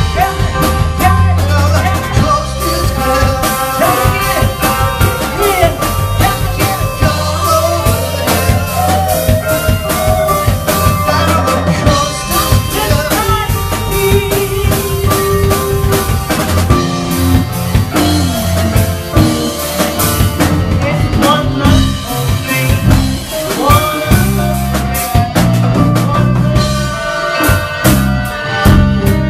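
Live band playing with drum kit and keyboards, a steady bass line under a wavering lead melody, picked up by a pocket camera's microphone.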